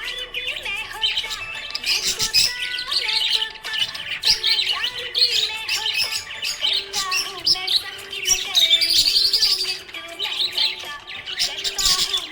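Budgerigar chirping and warbling without pause: rapid high chirps and twittering trills.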